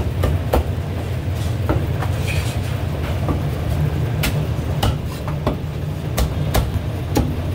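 Cleaver chopping roast goose on a thick wooden chopping block: irregular sharp knocks, about one or two a second, over a steady low rumble.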